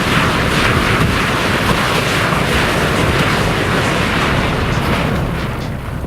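A large mass of burning matches and sparklers hissing loudly and steadily, with a low rumble underneath, easing slightly near the end.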